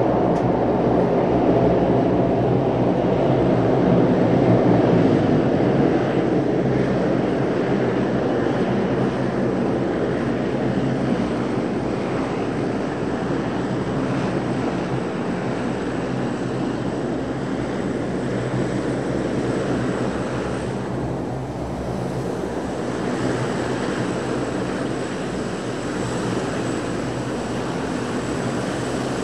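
De Havilland Canada Dash 7's four turboprop engines running, a steady propeller drone with a low hum. It is a little louder in the first few seconds, then holds at a slightly lower level.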